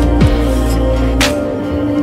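Background music of sustained tones, with a deep falling bass hit about a quarter second in and a short rushing swoosh past the middle.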